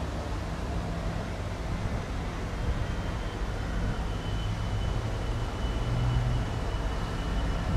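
Class 66 diesel freight locomotive running, a steady low engine rumble getting a little louder as it comes closer. A thin, steady high whine comes in about three seconds in.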